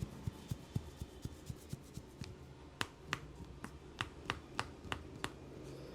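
Hand massage: a run of soft, quick pats about four a second, then from about halfway a string of sharp snapping cracks roughly three a second from the masseur's hands on skin.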